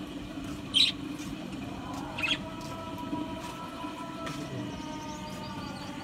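Budgerigars chirping, with two short, sharp, loud calls standing out, one about a second in and another just after two seconds.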